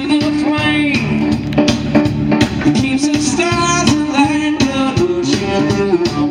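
Live blues band playing: a singer over guitar and drums, with a steady beat.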